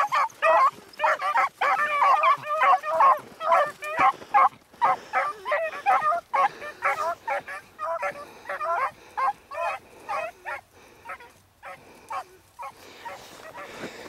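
A pack of beagles baying while they run a rabbit's trail, in short, quick, repeated barks from several dogs. The calls overlap thickly in the first few seconds, then thin out to scattered single barks near the end.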